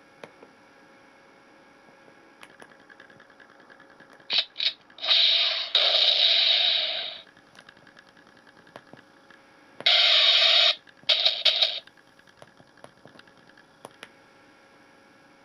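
Electronic sound-effects board for an M41A pulse rifle prop playing its firing effects through a small speaker: two short blips about four seconds in, then a burst of about two seconds, and another burst near ten seconds followed by a few short ones. A faint electrical hum fills the gaps.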